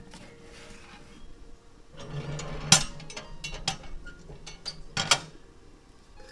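A metal pan scraping into the oven of a rusty sheet-steel wood-burning stove, then the steel oven door and its latch clanking shut: sharp metallic clanks, a loud one a little before halfway and a double clank near the end.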